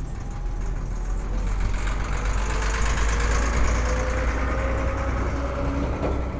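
Heavy diesel truck driving past close by, its engine rumbling low. It grows louder to a peak about halfway through, then eases off as it pulls away.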